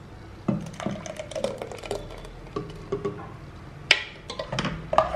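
Metal spoon clinking and scraping against a bowl and a pressure cooker as ground coconut paste is scooped into mashed papaya and lentils and stirred in: scattered light clinks, with one sharper clink about four seconds in.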